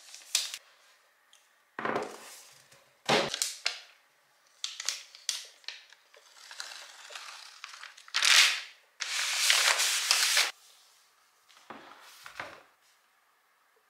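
Unboxing handling noise around a new 14-inch MacBook Pro: cardboard and paper rustling, a couple of knocks as the laptop is set down, and a long tearing rip as its paper protective wrap is pulled off.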